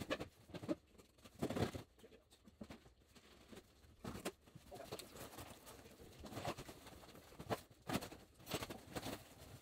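Scattered knocks, scrapes and footsteps on a wooden floor as a large cardboard-wrapped dining table is handled and shifted, coming irregularly, fairly faint.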